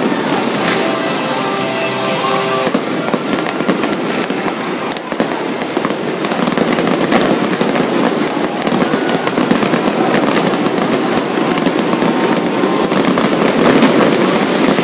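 Aerial fireworks display going off in a continuous rapid barrage of bangs and crackling, growing louder over the second half.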